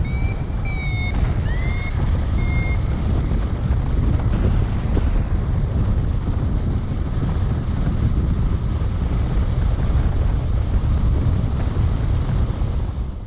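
Loud wind rushing over the microphone of a camera on a flying paraglider, steady throughout. In the first three seconds a paragliding variometer gives about four high electronic beeps, some sliding up in pitch as they start, then falls silent.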